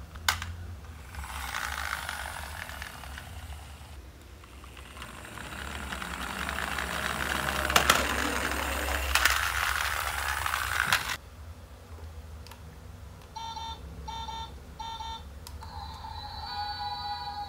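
Plastic wheels of a toy excavator rolling along a wooden ramp, a rattling noise that grows louder and cuts off suddenly about eleven seconds in. Then a toy garbage truck's sound button sets off three short electronic beeps and a held electronic tone.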